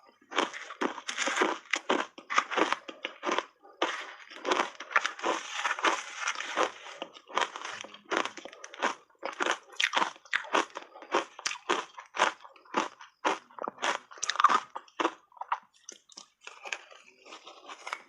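Close-up crunching and chewing of dry shaved ice dusted with matcha powder: a quick, uneven run of crisp crunches, several a second.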